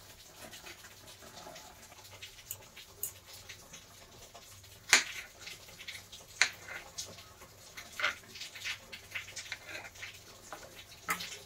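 Small kitchen knife cutting button mushrooms into quarters on a plastic chopping board: scattered light taps of the blade on the board, the loudest about five seconds in.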